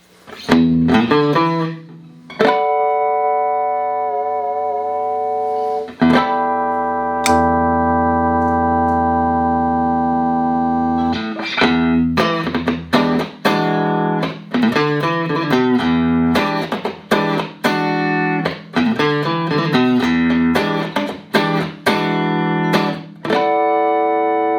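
Clean electric guitar played through a compressor pedal into clean amps: chords strummed and left to ring for several seconds, then quick runs of picked notes, ending on a held chord.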